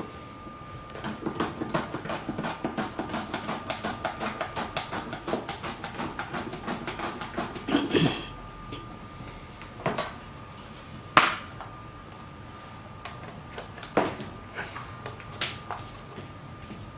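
Plastic mandoline slicer in use: the hand guard is pushed quickly back and forth over the blade, cutting a vegetable in an even run of about five strokes a second. This is followed by a few separate knocks of the plastic parts on the table, the loudest about halfway through.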